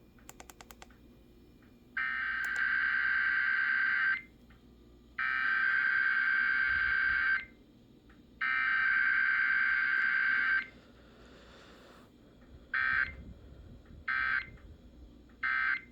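Emergency Alert System (SAME) digital data bursts for a Required Weekly Test: three long warbling electronic screeches of data tones, each about two seconds long, then three short bursts a second and a half apart, the end-of-message code.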